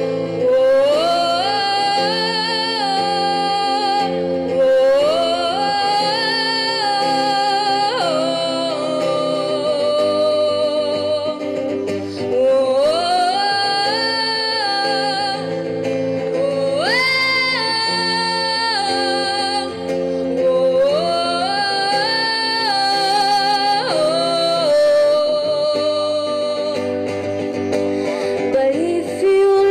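A girl singing a slow ballad into a microphone, with long held notes and vibrato, over acoustic guitar strumming.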